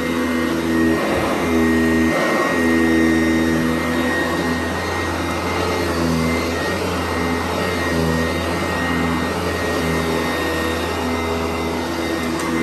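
A Sanitaire SC889B commercial upright vacuum cleaner running steadily. Its motor tone shifts back and forth every second or so, over a constant high whine.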